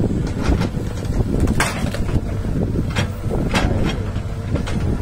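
Excavator diesel engine running steadily, with several short sharp noises of the machine working, and some wind on the microphone.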